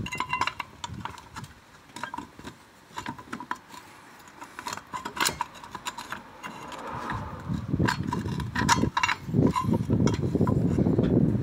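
Irregular metallic clicks and rattles of the spare-wheel carrier cable's end fitting being worked through the centre hole of a steel wheel, with louder handling noise and knocks in the second half.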